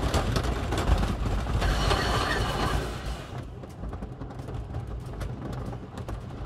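The Voyage's PTC train running on its wooden coaster track, a loud rattling rumble with rapid clicks that drops off about three seconds in, leaving lighter clicking.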